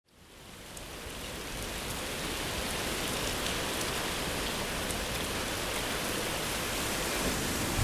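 Steady rain falling, fading in over the first second, with faint scattered drop ticks through the hiss.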